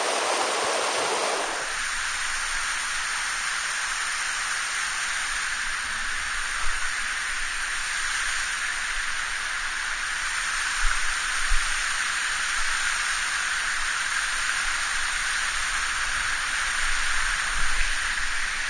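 Mountain stream rushing over rocks, a steady hiss of running water, with a few brief low bumps along the way.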